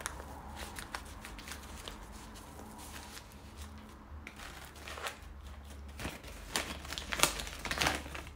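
Stiff, papery sego gele headwrap fabric rustling and crinkling as hands press, tuck and pull it into shape on the head. The rustles are scattered at first, then thicken into a run of loud, crisp crackles near the end as the fabric is pulled up.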